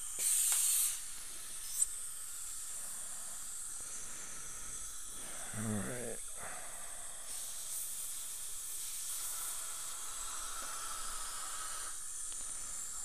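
A dental air-water syringe sprays for about a second, rinsing out an implant's screw access, with a sharp click shortly after. A steady background hiss runs underneath.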